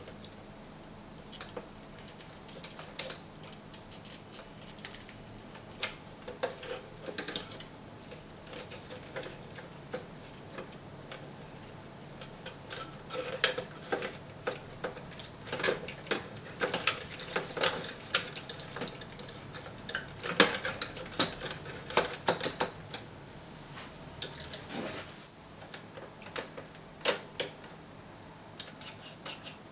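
Irregular light clicks and clacks of plastic parts and circuit boards being handled inside an opened Sony CFS-W600 boombox, busiest in the middle.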